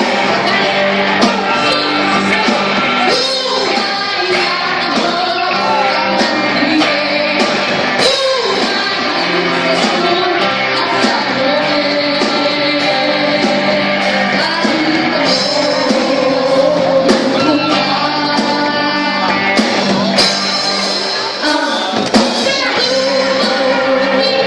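Live rock band performing loudly: a man singing over electric guitar and a drum kit.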